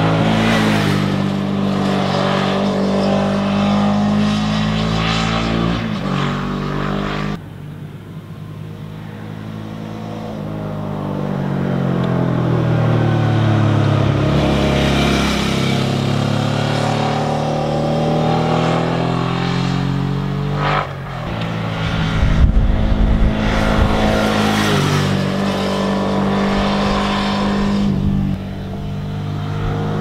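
Suzuki V-Strom 650 XT's 645 cc V-twin engine running as the motorcycle is ridden through bends. In the middle its note rises as it approaches, then falls away as it passes. It is loudest about two-thirds of the way through, with a low rumble as it goes by close.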